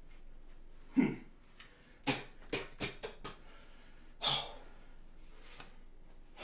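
A man breathing hard after physical exertion: a sharp voiced gasp about a second in, a quick run of short, heavy breaths, then a long exhale.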